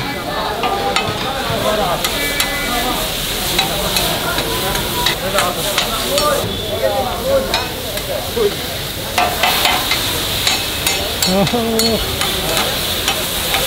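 Meat frying on a hot griddle, sizzling steadily, with metal spatulas scraping and clanking against the cooking plate many times throughout.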